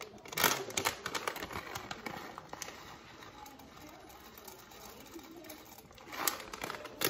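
Stiff plastic food pouches crinkling and rustling as they are handled and opened, loudest about half a second in and again near the end.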